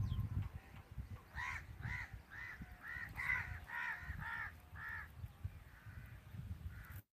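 A crow cawing, about eight short calls in quick succession, roughly two a second, over a low rumble.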